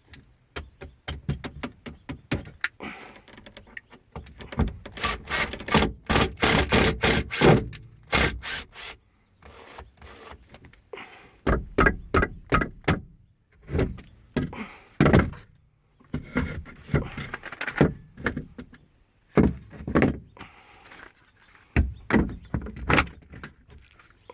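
Metal hand tools and hardware being handled: bursts of rapid clicking and clattering with knocks, separated by short pauses.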